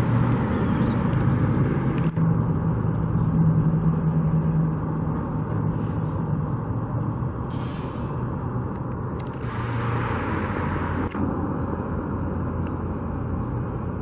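Road traffic: a steady engine rumble from vehicles, with one swelling as it passes about ten seconds in.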